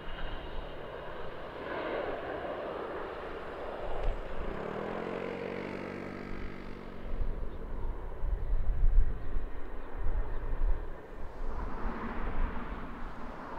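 Airliner engine noise, with a pitched engine tone that shifts for a few seconds around the middle, giving way to wind buffeting the microphone in the second half.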